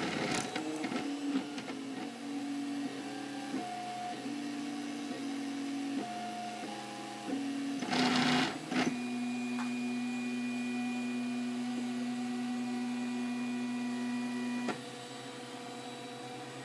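Dual-extruder MakerBot Replicator 3D printer running: its stepper motors whine in tones that jump from pitch to pitch as the print head moves through the print, over the whir of the extruder cooling fans. About eight seconds in there is a short loud rush of noise, then a single steady tone holds until it drops away about fifteen seconds in.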